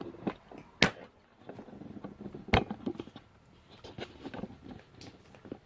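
Dog playing with and chewing a cloth plush toy: scattered knocks and rustling, with two sharper clacks about one second and two and a half seconds in.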